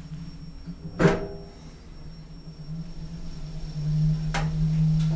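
KONE elevator car setting off and travelling: a sharp clunk about a second in, then the steady low hum of the lift drive, which grows louder about four seconds in, with a light click near the end.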